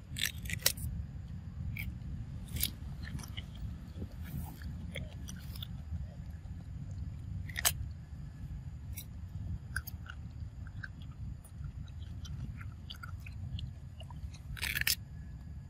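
Long-tailed macaque biting into and chewing a raw cucumber close to the microphone: crisp crunching bites at irregular intervals, the loudest about half a second in, near eight seconds and near the end, over a steady low rumble.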